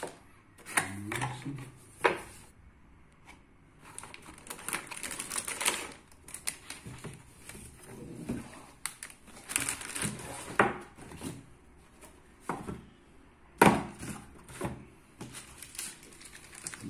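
Motherboard packaging being handled: a plastic anti-static bag and bagged accessories rustling and crinkling, mixed with a string of sharp clicks and knocks as parts and cardboard are moved and set down on the table. The loudest knock comes about three-quarters of the way through.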